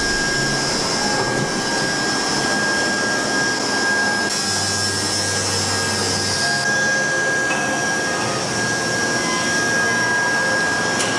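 Steady whirring noise of foundry machinery with a constant high whine. From about four to nearly seven seconds in, a lower motor hum and a brighter hiss join, an electric overhead hoist running.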